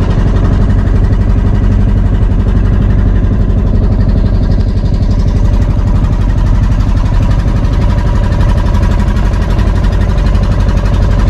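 Motorized outrigger boat's engine running steadily under way, a loud, even, pulsing drone.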